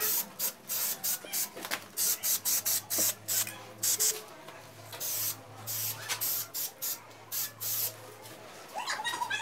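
Aerosol spray-paint can hissing in many short bursts, about two a second, as black paint is sprayed onto PVC pipe.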